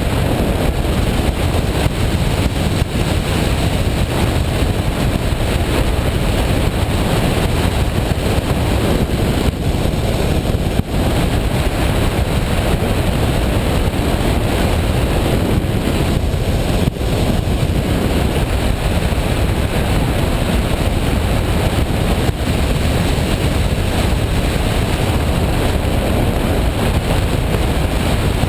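Washing machine running: a loud, steady rumble and rush with no let-up.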